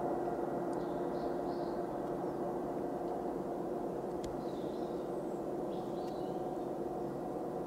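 Ilyushin Il-76TD-90VD's PS-90A76 turbofan engines running at taxi power, heard at a distance: a steady hum with a couple of held tones. Faint high chirps come and go over it.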